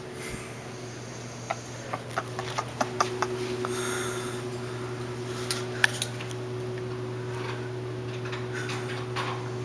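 Steady hum of a small electric desk fan running, with a run of light sharp clicks and knocks between about one and a half and three seconds in and two more near six seconds.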